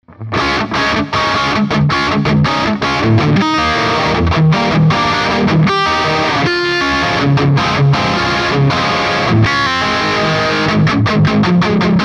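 Charvel San Dimas Style 1 electric guitar played through distortion with its tone control at the no-load setting: a fast riff of chugging notes and chords, broken by quick stops near the end.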